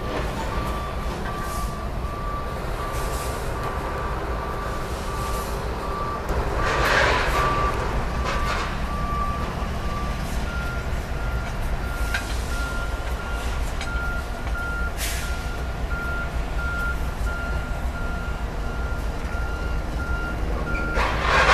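Electronic warning bells ringing in an even, rapidly pulsed single tone. About ten seconds in, one bell gives way to a slightly higher-pitched one. Wind rushes on the microphone throughout, with louder gusts midway and near the end.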